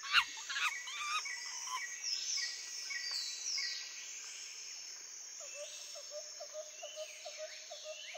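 Pencil scratching on paper, with a bird chirping in the background: quick chirps in the first couple of seconds, then a short note repeated about three times a second in the second half.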